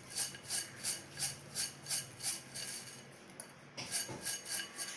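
Dry fried mixture snack being stirred in a vessel: a crisp rasping scrape in a regular rhythm of about three strokes a second, pausing briefly about three seconds in, then a few more strokes.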